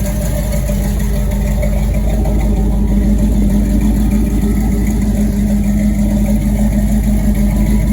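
1983 Buick Regal's engine running at a steady idle through its full exhaust system, a loud continuous low drone.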